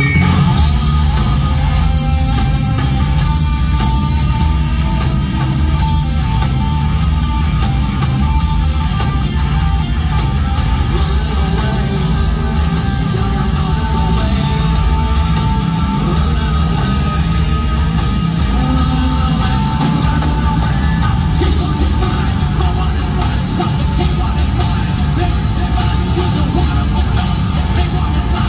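Progressive metal band playing live in an arena: distorted guitar, bass and drum kit with cymbals, and singing.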